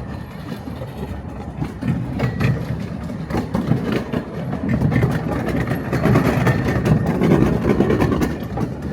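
Redwood Valley Railway 15-inch gauge miniature train running on its track, its wheels clicking over the rails, getting louder from about halfway through.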